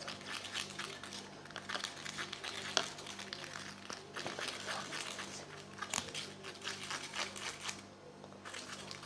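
Irregular scraping and tapping as a stick stirs a toothpaste-and-detergent slime mixture in a container, with many short scratchy clicks.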